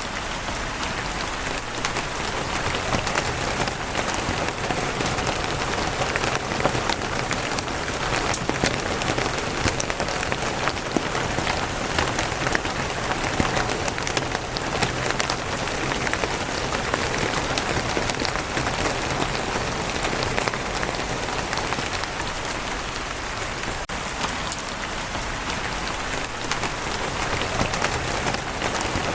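Steady rain falling on a wooden roof, a dense patter of many small drop hits.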